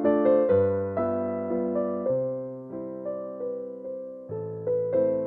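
Background music: a gentle piano tune, notes struck and left to fade, a new note or chord about every half second.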